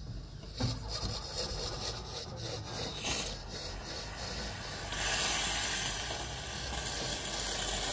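Microcimbali espresso machine brewing a shot: a rough, rasping noise of the machine running and coffee flowing into the glass, turning into a louder steady hiss about five seconds in.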